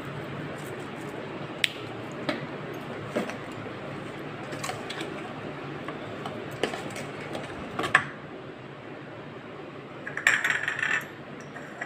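A plastic spoon mixing spiced meat pieces in a stainless steel bowl, with scattered clicks and scrapes against the steel. Near the end there is a second of rapid clinking.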